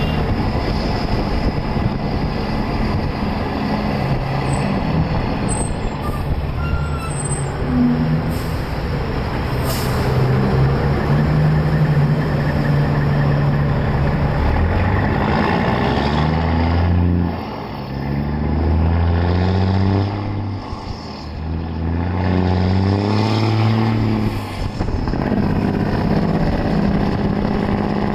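Peterbilt 379 semi truck's diesel engine pulling a heavy load away and accelerating through the gears: the engine note climbs, breaks off at a shift and climbs again several times about two seconds apart. A short air-brake hiss comes about ten seconds in.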